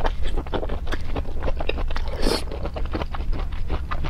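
Close-miked chewing of a long green chili pepper in chili sauce: rapid crisp crunches mixed with wet mouth sounds, with a louder, noisier crunch about two seconds in.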